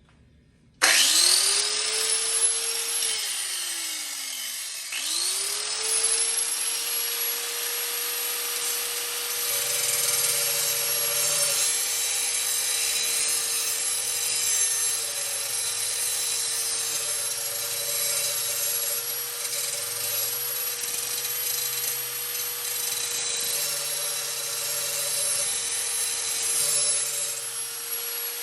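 A Chicago Electric 4-1/2-inch angle grinder switched on about a second in, spinning up, then let go and winding down; it is started again about five seconds in and runs steadily while grinding the edge of a lawnmower blade, with a scraping sound that comes and goes over the motor's steady whine. It begins to wind down at the very end.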